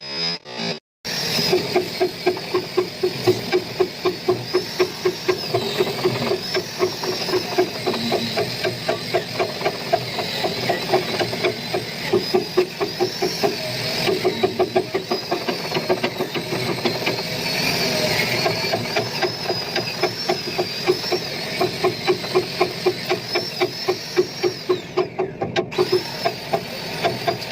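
Angle grinder fitted with a wire cup brush running against metal, scraping off rust or paint: a high whine that wavers in pitch as the brush is pressed and eased, over a fast, rough, regular pulsing. It starts about a second in and cuts off near the end.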